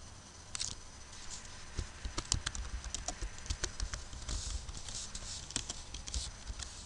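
Typing on a computer keyboard: a run of irregular key clicks that starts about half a second in and stops shortly before the end.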